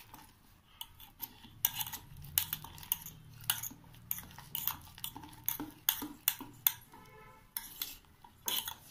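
Wire whisk beating gram-flour batter in a steel bowl: irregular clinks and taps of the wires against the metal.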